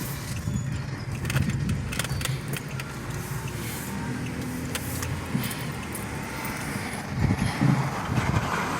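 Car engine and road noise heard from inside the cabin while driving, a steady low hum with scattered light clicks and rattles.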